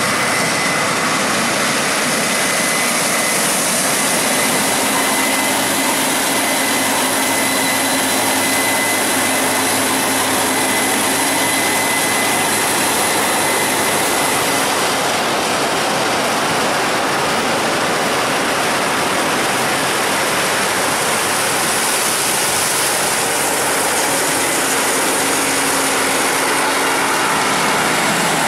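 Combine harvester running steadily while harvesting corn: a dense, even machine noise, with a faint high whine through the first half.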